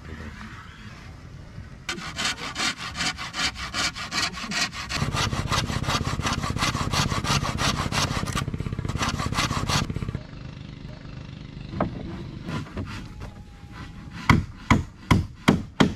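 Handsaw cutting through a wooden board in rapid, even back-and-forth strokes that start about two seconds in and run for about eight seconds. After a lull, a few slower, heavier strokes come near the end.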